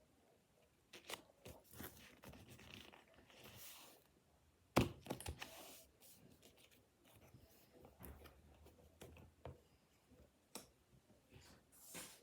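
Paper and cardboard being handled and pressed together while a cut-out is glued on: faint rustling and crinkling with scattered clicks and a sharp knock about five seconds in.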